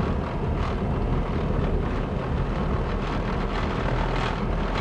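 Noisy car driving: a steady low engine and road rumble.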